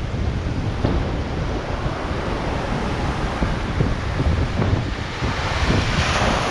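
Sea surf washing over a rocky shore, with wind buffeting the microphone. Near the end a wave breaks and foams over the rocks, and the wash grows louder.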